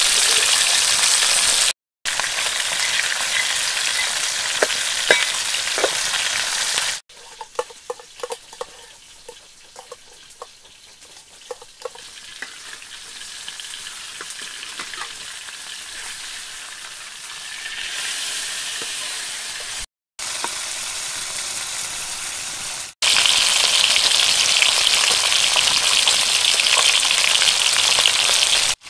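A whole fish frying in hot oil in a wok: a steady sizzle that starts and stops abruptly several times, stronger at the start and near the end. In the middle it drops to a quieter hiss with scattered small pops and clicks.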